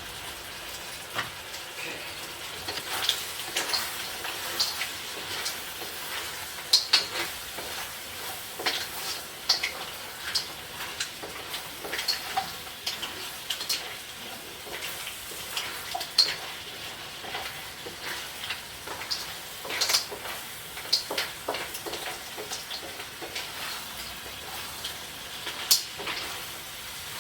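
Seafood (mussels and calamari) sizzling in a pan, a steady frying hiss with frequent sharp clicks and knocks of a utensil stirring against the pan.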